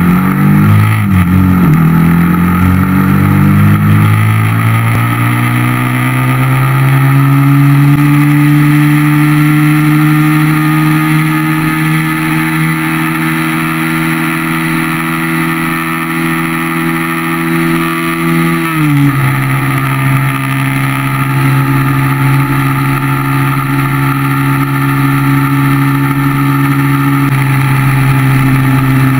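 Yamaha motorcycle engine under way, heard from the rider's seat with wind rush. Its pitch rises as the bike accelerates for the first several seconds, then holds at a steady cruise. About two-thirds of the way through it drops sharply at an upshift and runs steadily again.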